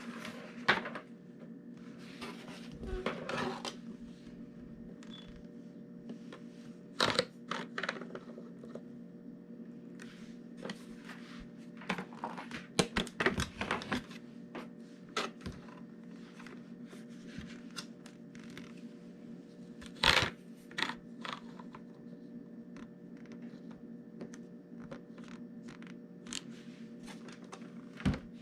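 Irregular clicks, taps and scrapes of the heat plate's adjustable legs being pushed into their sockets and handled, with a steady low hum underneath.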